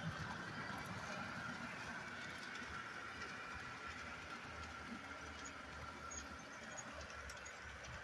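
Model trains running on a layout: a steady electric-motor whine with the low rumble of wheels rolling on the track.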